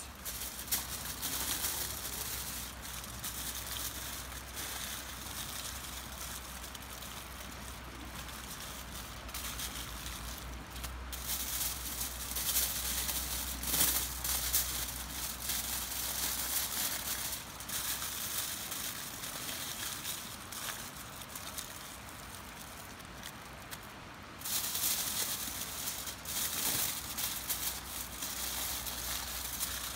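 Aluminium foil crinkling and rustling in irregular spells as it is folded by hand around chicken breasts, louder about halfway through and again near the end.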